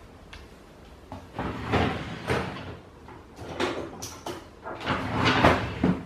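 Someone rummaging off-camera to fetch a pair of pliers: a run of irregular knocks, clicks and scraping rustles.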